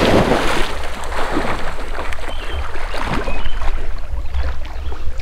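Wind buffeting the microphone, with small waves lapping at the pond's edge.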